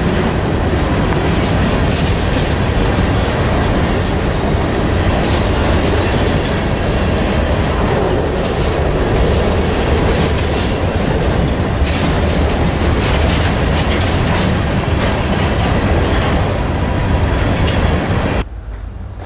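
Freight train of covered hopper cars rolling past at close range, a steady loud noise of steel wheels on the rails. The sound drops off sharply about eighteen seconds in as the last car clears.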